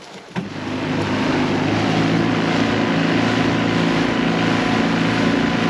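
Small outboard motor on an aluminium dinghy running steadily at speed under way, over the rush of water and wind. It comes in sharply just after the start.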